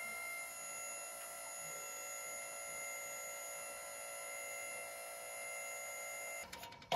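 Trailer-mounted boom crane's power unit running with a steady hum-whine of several fixed pitches while the hook line is lowered; it cuts off suddenly near the end.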